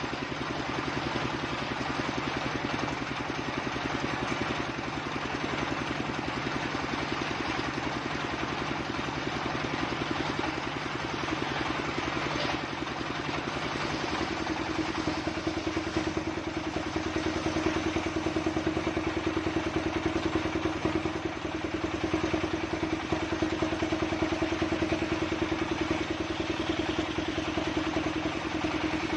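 Engine of a circular log saw running steadily with a rapid, even clatter. About halfway through, its note changes and a steady hum comes up stronger.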